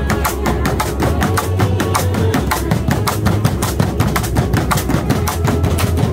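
A group of ukuleles strumming a lively folk tune, with bamboo poles clapped together and struck on the floor in quick, even knocks to keep time for a tinikling bamboo dance.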